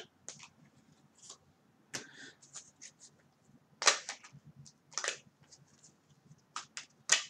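Deck of playing cards being shuffled and handled by hand: scattered sharp snaps and flicks of the cards, the loudest two about four and five seconds in, then a quick run of them near the end.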